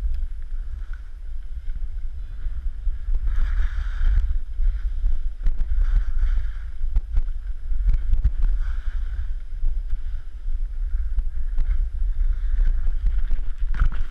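Wind rumbling on the microphone of a camera riding down a snowy track on short skis (snowblades). The hiss of the skis sliding and scraping on snow swells every few seconds, with small knocks from bumps.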